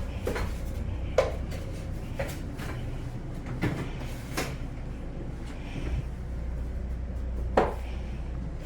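Steady low hum of a running air conditioner, with about six sharp clicks and knocks of hard objects being handled, the loudest about a second in and near the end.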